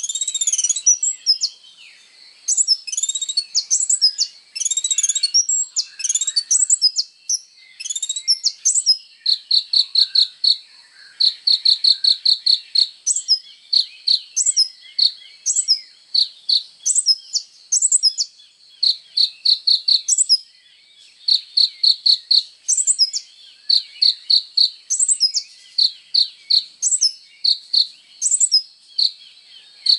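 Kolibri ninja sunbird singing constantly in very high-pitched notes. It opens with varied twittering sweeps, then settles into short, fast trills of several notes repeated every second or two.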